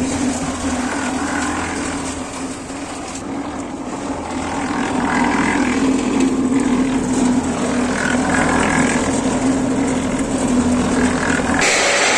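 Mini concrete mixer running, its motor giving a steady hum under the noisy churn of the turning drum.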